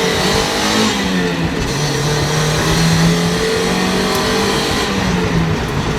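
A 1.6-litre four-cylinder Mazda Miata engine with an aftermarket Yonaka exhaust, heard from inside the cabin as the car accelerates, its note rising and dipping several times over road noise. From inside it literally just sounds stock.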